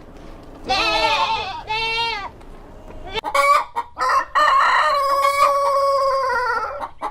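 A goat bleats twice in quick succession, then a rooster clucks a few times and crows in one long call.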